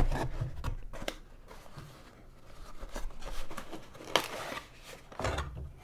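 Cardboard packaging being handled: a small inner cardboard box is lifted out of its shipping box with light rustling and scraping, and a single sharp tap about four seconds in.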